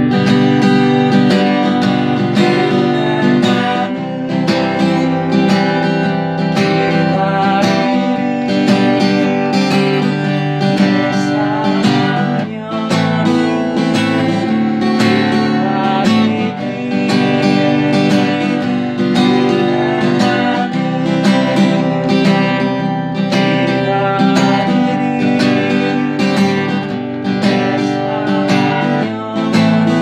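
Solo acoustic guitar strummed in a lively shuffle rhythm, moving through the chords G, C, D7 and G.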